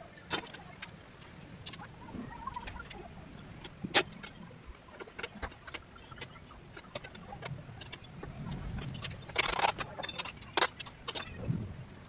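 Hand tools and small metal parts clicking and clinking at a motorcycle handlebar during work on the front brake master cylinder. Scattered clicks, one sharp knock about a third of the way in, and a louder burst of rattling about three-quarters through.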